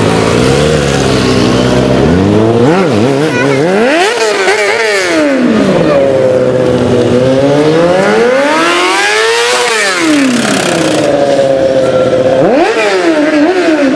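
Stunt motorcycle engine revving up and down, its pitch climbing and falling in long swells, with a sharp climb near the end.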